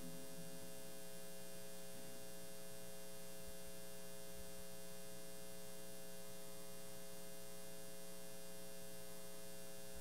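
Faint, steady electrical mains hum from the sound system: several steady tones stacked together, unchanging throughout.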